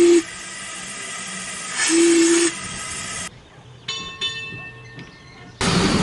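Steam locomotive whistle: a blast ending just after the start and a second short blast about two seconds in, over hissing steam. After a cut there is a ringing tone struck twice, then a loud rushing noise near the end.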